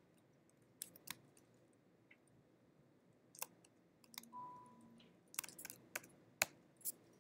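Computer keyboard keys pressed one at a time, sparse quiet clicks at uneven spacing, coming more often toward the end as text is deleted.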